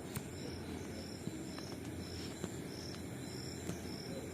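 A cricket chirping steadily, about two short high chirps a second, over a faint room hum, with a few faint clicks.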